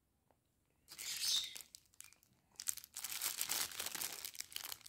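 Clear plastic packaging crinkling as it is handled: the wrapping around a rolled diamond-painting canvas. A short rustle comes about a second in, then a longer stretch of crackling crinkles from about halfway through.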